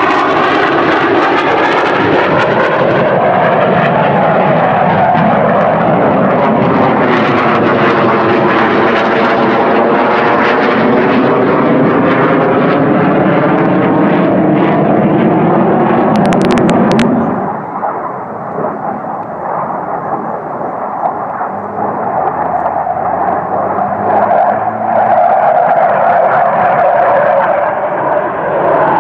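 Panavia Tornado IDS jet flying past, its twin RB199 afterburning turbofans loud, the noise sweeping in pitch as it passes. About two-thirds of the way through it drops in level and loses its highs as the jet draws away, then grows louder again near the end as it comes back round.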